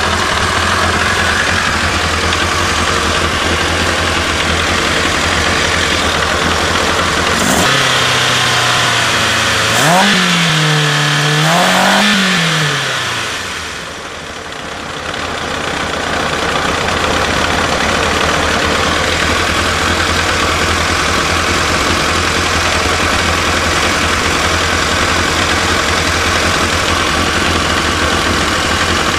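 1992 Kawasaki ZXR 750 J's inline four-cylinder engine idling, then revved from about seven seconds in: two quick rises and falls in pitch. It drops back to a steady idle from about the middle onward.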